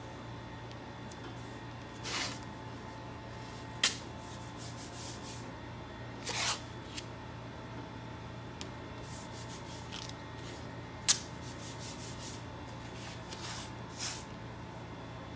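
Masking tape being torn off the roll in a few short rasps and rubbed down by hand, with two sharp clicks in between, over a steady low hum.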